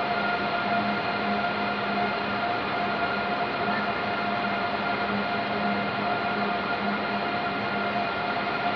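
Steady electrical hum with several constant tones from electric trains standing at the platform with their onboard equipment running.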